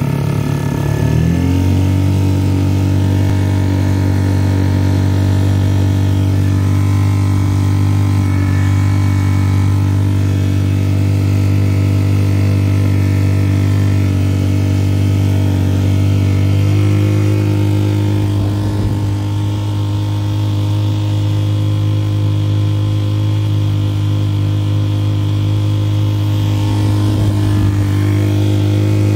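Tohatsu 3.5 HP four-stroke single-cylinder outboard motor running under way. It revs up about a second or two in, then holds a steady speed, with small steps up in pitch later on.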